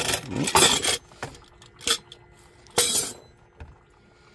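A plastic creamer bottle scraping and knocking against the plastic door shelf of a mini fridge as it is lifted out: a rush of rubbing in the first second, a sharp click near two seconds and another scrape just before three seconds, then quiet.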